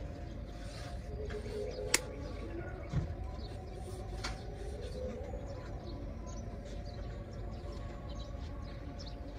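Chillies being turned by hand on a wire grill over a charcoal stove: a sharp click about two seconds in, a dull knock a second later and another light click. Birds chirp and voices murmur in the distance.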